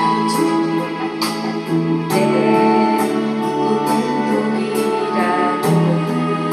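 A song playing: a sung melody over instrumental backing, with sustained notes and a regular beat.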